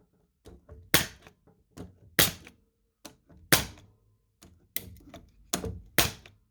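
Pneumatic pin nailer firing, shot after shot: about five sharp cracks at irregular spacing, with a few softer clicks between. The gun is driving nails again now that its driver blade has been replaced.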